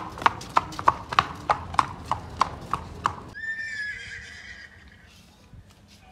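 A young Marwari horse's hooves clip-clopping on brick paving at a walk, about three steps a second. About three seconds in, the hoofbeats stop and a horse gives one long whinny that starts high and sags slightly.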